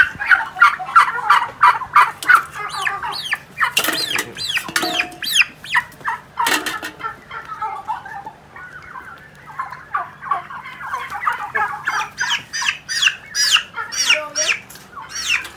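A flock of young Huba turkeys, about three months old, calling: many quick, high peeps and trills that slide downward in pitch, overlapping one another.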